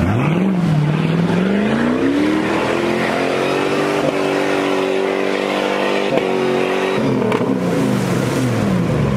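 Off-road 4x4's engine revving up over a couple of seconds, held at high revs for about four seconds, then dropping back to lower revs near the end.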